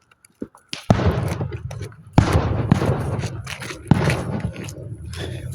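Fireworks going off: three loud bangs about a second, two seconds and four seconds in, each trailing into a rumbling, crackling tail, with scattered smaller pops between them.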